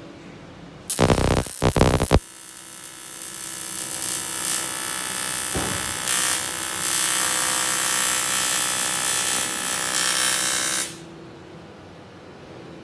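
TIG welding arc: a loud crackling burst about a second in as the arc is struck, then a steady buzzing hiss for about eight seconds while filler rod is fed into the joint of a tank fitting, cutting off suddenly near the end.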